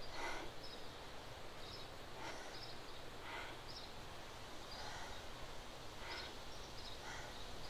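Faint woodland ambience with small birds chirping briefly and high, about once a second.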